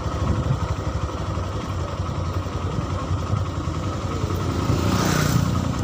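Honda Verza 150's single-cylinder engine running at low speed as the motorcycle rolls slowly, with a rapid, even firing beat. Near the end a louder rushing noise swells briefly.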